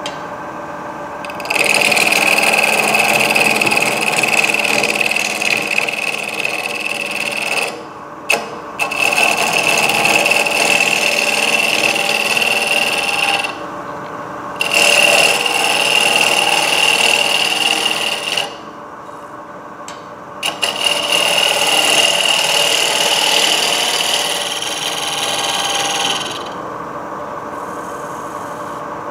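Wood lathe with a turning tool cutting into a spinning wood blank: four long cuts of several seconds each, with the lathe running more quietly in the pauses between them.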